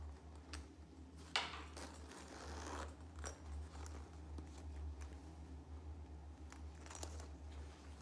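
A belt bag and its packaging being handled: a few light clicks and knocks, the sharpest about a second and a half in, and a short rustle of about a second, all faint over a steady low hum.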